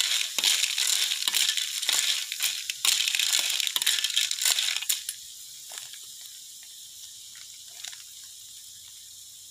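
Stir-frying in a wok over a wood fire: food sizzling while a metal spatula scrapes and clinks against the pan. The sizzling is loud for about five seconds, then drops away to a faint hiss with scattered clicks.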